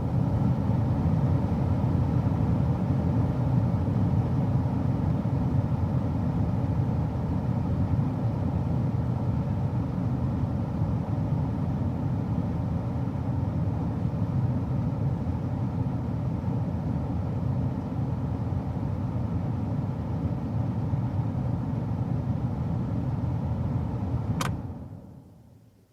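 A car engine runs steadily at a constant pitch, as a low even rumble with no revving. Near the end there is a short click, and the sound then fades out.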